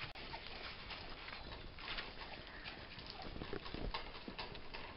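Faint, irregular scuffles and small clicks from Schipperke puppies moving about and mouthing toys on a blanket over a tarp.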